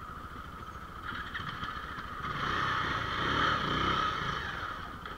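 Motorcycle engine idling. About two seconds in it swells louder for a couple of seconds, then settles back.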